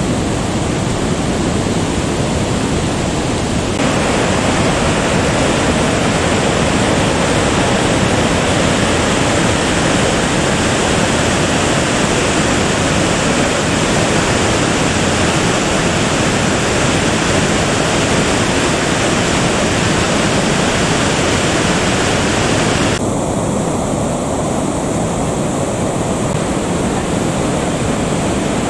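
Barron Falls in heavy flow, a loud, steady rush of falling water. The sound turns abruptly brighter about four seconds in and duller again near the end.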